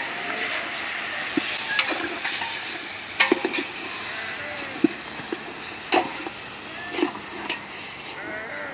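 Mutton frying and sizzling with fried onions in a large steel pot over a wood fire, turned over by hand, with scattered sharp clinks of metal against the pot.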